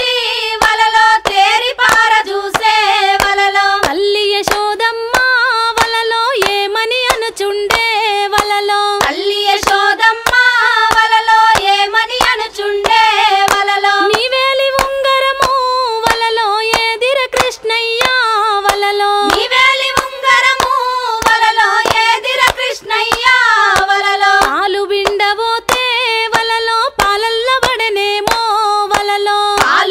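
Group of women singing a Telugu Bathukamma folk song, with steady rhythmic hand clapping about twice a second.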